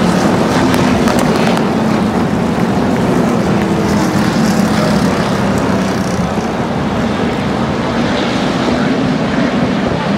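A pack of NASCAR stock cars' V8 engines running through a corner, the cars passing one after another so that their engine notes overlap into a loud, continuous drone.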